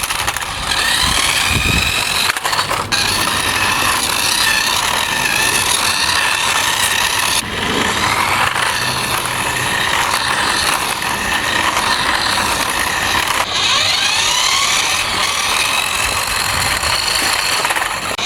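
Toy remote control drift car driving: its small electric motor whines, rising and falling in pitch as it speeds up and slows, over a steady rushing noise of the wheels on the ground.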